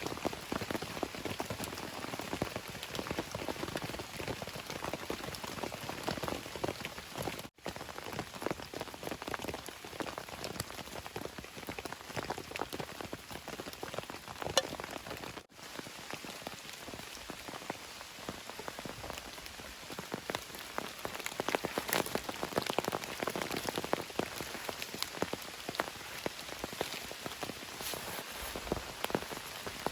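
Steady rain, many separate drops pattering on a surface. It cuts out for an instant twice, about 8 and 16 seconds in.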